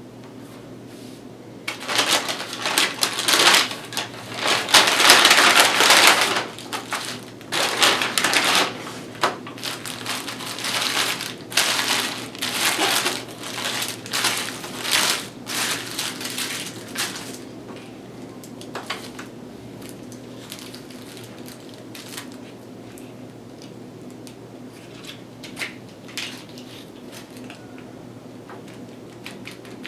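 Close-up crinkling and crunching as a chicken sandwich and its wrapper are handled, loud and in bursts for about fifteen seconds, then quieter scattered clicks.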